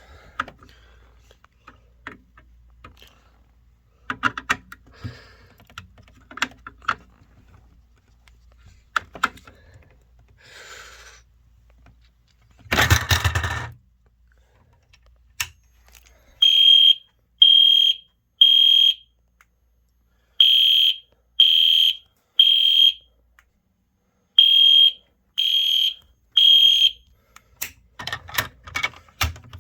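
Clicks and knocks of handling, then a loud noisy burst lasting about a second and a half. From about halfway in, an EST Genesis fire alarm horn sounds the temporal-three evacuation code three times: three short beeps, a pause, and again. More clicks come near the end.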